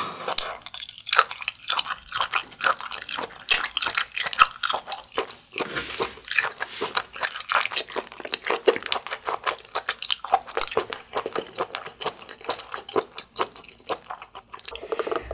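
Close-miked chewing of a bite of butter-grilled abalone: a dense, uneven run of crisp, wet mouth clicks.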